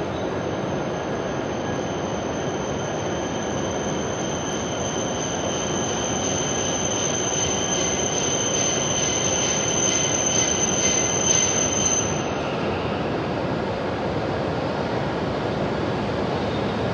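E7/W7-series Shinkansen arriving through an underground station, a steady rumble of wheels and running gear as it slows alongside the platform. A high-pitched whine sounds over the rumble and cuts off about twelve seconds in.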